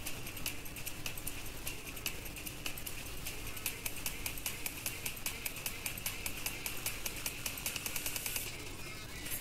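Rapid light clicking of a computer keyboard and mouse, several clicks a second and quickening toward the end, over a steady hiss and low hum.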